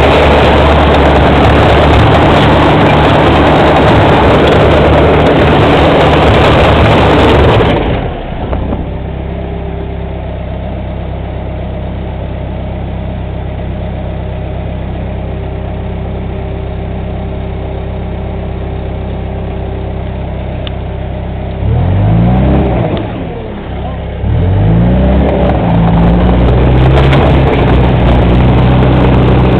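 Bulldozer's diesel engine running loud at high revs, then dropping to a steady idle about eight seconds in. Near the end it revs up twice and runs hard again.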